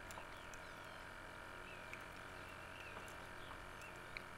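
Faint outdoor ambience with a few short, quiet bird chirps over a low steady hum.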